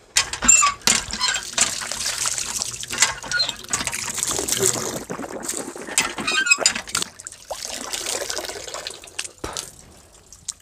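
Water from an iron hand pump's spout splashing over someone washing beneath it, with a few sharp metallic clanks; the splashing eases off over the last few seconds.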